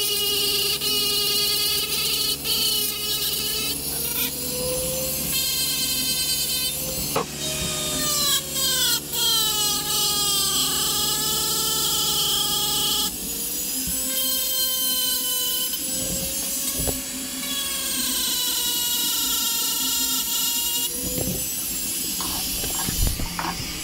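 Die grinder with a small abrasive bit blending welded aluminium in a cylinder head's combustion chamber. Its high whine rises and falls in pitch as the bit bites and eases off. It stops near the end, followed by a few knocks.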